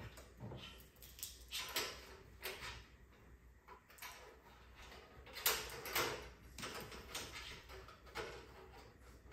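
Hands fitting replacement LED backlight strips inside an opened flat-screen TV: irregular light clicks, taps and scrapes of plastic and metal parts being handled. The two strongest come about five and a half and six seconds in.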